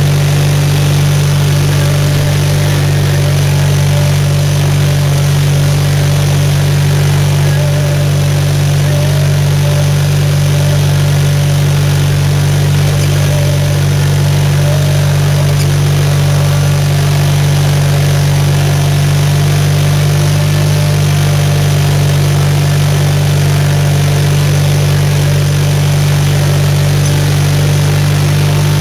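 Engine of a 520-SC Snow Chucker running at a steady, even speed while the machine drives along, heard from on board just behind its upright exhaust stack.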